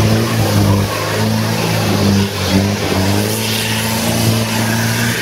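Mitsubishi Pajero 4x4 engine run hard under load as it climbs a muddy slope, its pitch holding and then stepping up and down as the wheels spin and grip.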